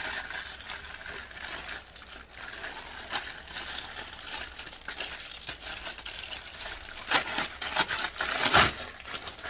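Plastic packaging crinkling and rustling as items are handled and pulled out, with the loudest crinkles about seven and eight and a half seconds in.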